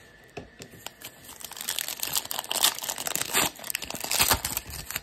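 Foil wrapper of a 2022 Bowman Platinum baseball card pack crinkling as it is torn open by hand. The crackle builds after a quiet first second and runs in dense, uneven bursts until near the end.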